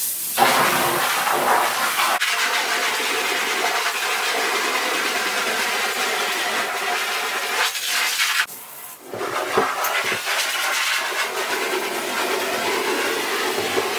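Handheld shower sprayer spraying a hard stream of water against a screen-printing screen's mesh, rinsing out emulsion loosened by the remover. The spray stops briefly a little past halfway, then resumes.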